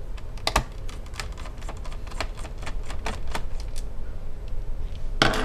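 Screwdriver turning out the bottom screws of a Toshiba Satellite A665 laptop: a run of irregular light clicks and ticks, with a louder clatter near the end.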